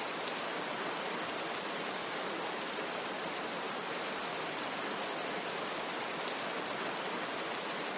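Steady rain falling, an even hiss with no distinct drops, thunder or changes.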